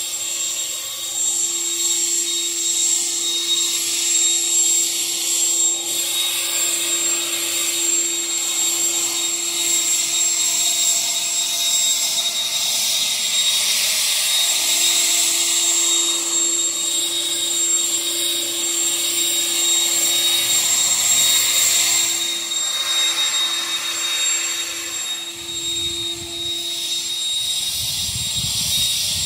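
Harbor Freight Bauer electric leaf blower running steadily at full speed, a constant motor whine over the rush of blown air as leaves are cleared. A low rumble builds near the end.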